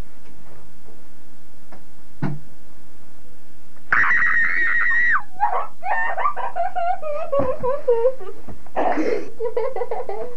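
A person's voice: a high, piercing held shriek about four seconds in, then a run of high, wavering vocal wails that bend up and down in pitch, with a short rough outburst near the end.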